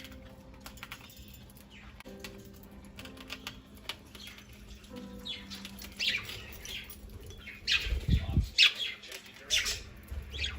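Budgerigars chirping and squawking in quick, harsh calls that grow loud and busy from about halfway through, with a brief flutter of wing flapping near the loudest part.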